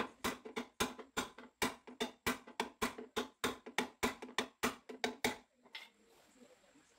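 Rapid hammer blows on the steel front frame rail of a Perodua Viva, about four ringing metallic strikes a second, straightening the bent frame. The hammering stops about five and a half seconds in, with one lighter tap after.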